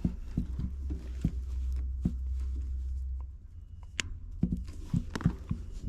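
Scattered light clicks and knocks of hands and tools working on a loose spade connector and wiring at the contactor, with a sharp click about four seconds in. A low hum runs under them and stops about three seconds in.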